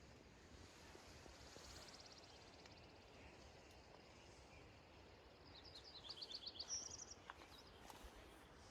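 Near-silent mountain-trail ambience with a faint high trill about a second and a half in. Later a small bird sings a short run of quick high chirps ending on a higher note.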